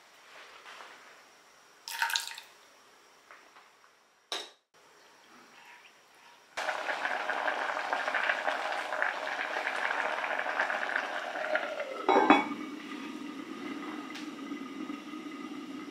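Seasoning liquid splashes briefly into a pot of soaked rice. About six and a half seconds in, the rice and stock start boiling with a steady bubbling hiss. Just after twelve seconds, the enameled cast-iron Staub lid is set on with a single clunk, and the boil goes on more dully under it.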